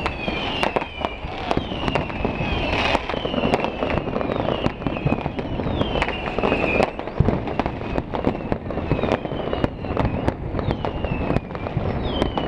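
Fireworks going off in a continuous barrage of bangs and crackles. Whistling fireworks give repeated falling whistles about once a second over the top.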